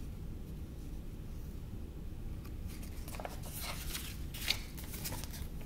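Paper pages of a large picture book rustling as they are turned, a few short crisp rustles in the second half with one sharp flick the loudest.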